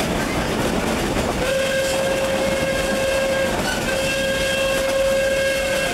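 Two long blasts of the steam whistle of Mitsubishi Type 80 locomotive No. 851, heard from inside a coach it is hauling, over the steady running noise of the carriage on the rails. Each blast holds one steady pitch. The first starts about a second and a half in, and a short gap separates it from the second.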